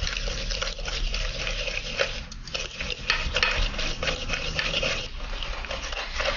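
Whisk beating egg yolks, sugar and flour in a stainless steel bowl: a rapid, irregular run of scraping and clinking as the wire tool knocks against the metal.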